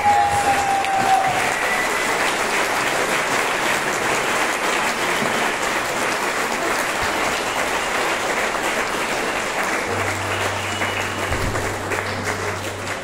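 Audience clapping and cheering, a dense steady applause that thins toward the end, with a short whistle near the start. A low steady hum comes in about ten seconds in.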